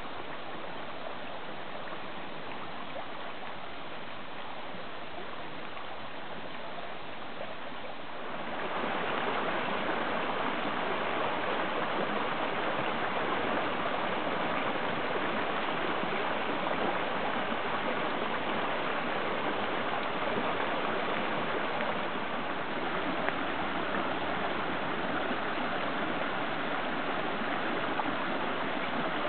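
Muddy storm runoff flowing over a gravel crossing and down a swollen creek, a steady rushing of water. About eight seconds in it gets louder, as water pours over a small drop in the creek and churns white below it.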